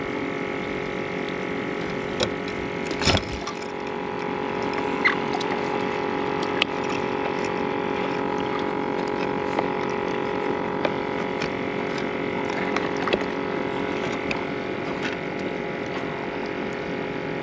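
Small battery-powered aerator pump on a live-bait bucket, humming steadily as it pumps air into the water. A few short clicks sound over it, the strongest about three seconds in.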